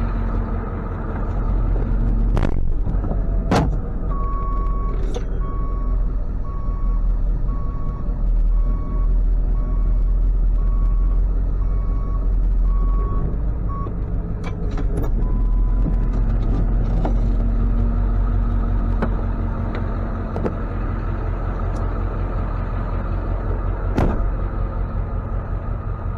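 Tow truck's engine running with a steady low rumble, while an electronic beeper sounds about once a second for some ten seconds, starting a few seconds in. A few sharp clicks are heard along the way.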